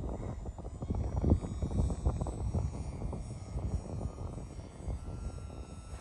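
Small electric RC airplane (E-Flite UMX Turbo Timber) with its motor and propeller whining faintly overhead, under gusty wind buffeting the microphone. A steady higher note comes in about five seconds in.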